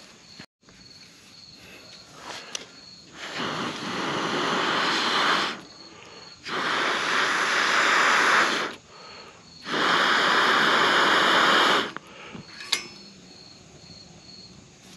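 Three long blows of air, each about two seconds, into a wood fire in a fire pit to feed the embers oxygen and get it burning again.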